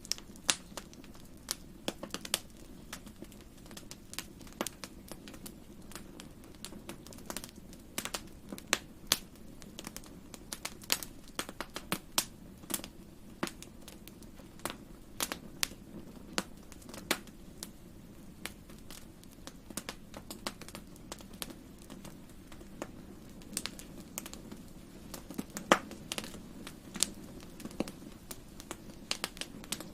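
Wood fire crackling in a fireplace: irregular sharp pops and snaps, a few louder than the rest, over a soft, steady low background noise.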